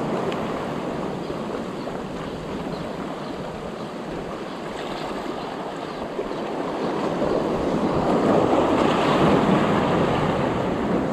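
Sea surf washing in over rocks at the shoreline, a steady rushing that swells louder for a few seconds about two-thirds of the way through.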